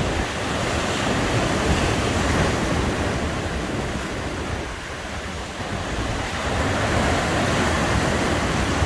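Sea waves breaking and washing up a beach, surging louder twice, with wind rumbling on the microphone.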